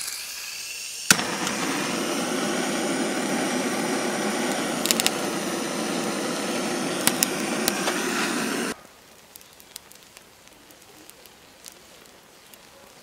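Handheld gas blowtorch lighting oil-soaked charcoal: a hiss of gas, a sharp click about a second in as it lights, then a loud steady hissing flame with a few pops. It cuts off suddenly about two-thirds through, leaving the faint crackle of the coals burning.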